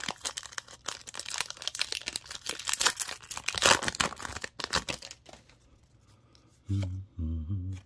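Foil wrapper of a Pokémon booster pack being torn open and crinkled as the cards are pulled out: a dense, uneven crackle that stops about five seconds in. Near the end there are two short, low hums.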